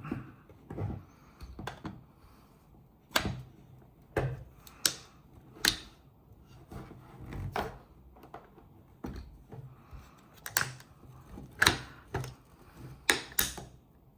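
Parts of a GHK HK416A5 gas-blowback airsoft rifle being fitted back together, giving irregular sharp clicks and clacks, about a dozen, with short pauses between them.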